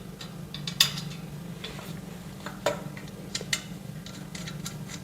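Steel shelf parts clinking and tapping as they are fitted together by hand, with a few sharp metallic clicks over a steady low hum.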